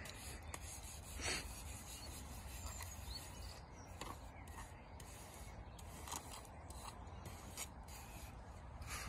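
Sand scraping and rubbing across the tray of a playground sand-play table as it is worked by hand, with a few small clicks and knocks spread through. A low steady rumble runs underneath.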